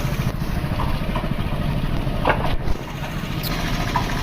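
Motor vehicle engine running steadily at close range, a dense low engine sound, with a few faint short sounds over it and no horn.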